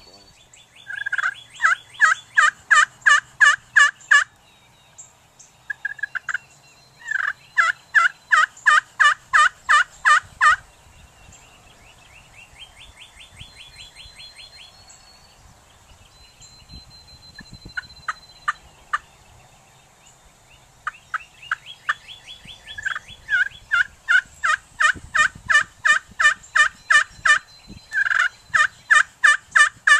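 Turkey yelps in long, evenly paced runs of about three or four notes a second, in several bouts with short pauses between them. A thin high whistle comes now and then in the gaps.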